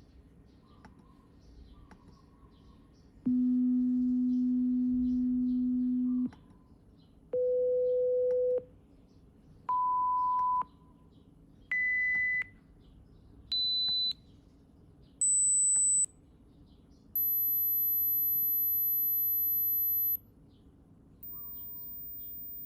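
Pure-tone hearing-test beeps from an app, played one at a time and stepping up in pitch from low to very high, about eight tones in all. The first is the longest at about three seconds, the rest last a second or so, and the last, highest tone is quieter and starts near the end. Faint bird chirps sound in the gaps between tones.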